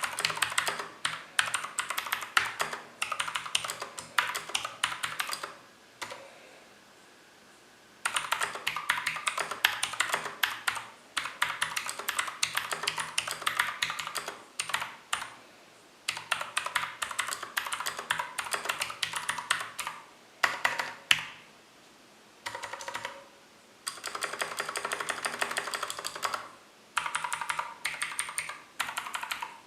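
Zebronics Max Pro mechanical keyboard with clicky Outemu Blue switches and Cherry profile keycaps being typed on fast. The clicks come in dense runs, broken by a few pauses of one to two seconds.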